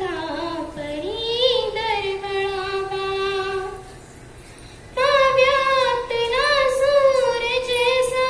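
A young girl singing a Marathi song solo, holding long notes with vibrato. The first phrase ends about four seconds in, and after a pause of about a second she begins the next.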